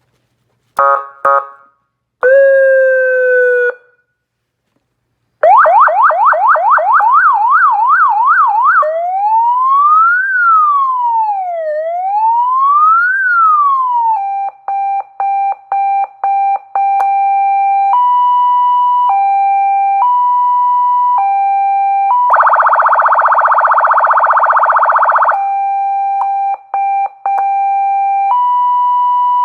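A 200 W wired electronic siren unit running through its tones. It gives two short chirps and a falling blip, then a fast yelp, then a slower wail sweeping up and down, then a two-tone hi-lo alternation broken by brief cut-outs. In the middle of the hi-lo it switches for about three seconds to a harsh buzzing horn tone, then goes back to the hi-lo.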